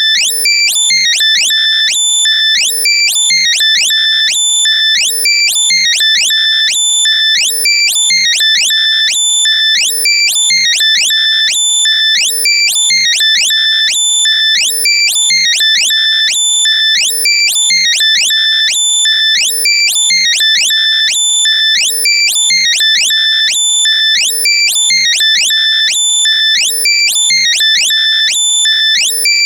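Loud, heavily compressed synthesized alert tone for finding lost earbuds: quick rising high-pitched sweeps followed by a held piercing beep, the pattern looping about every two and a half seconds.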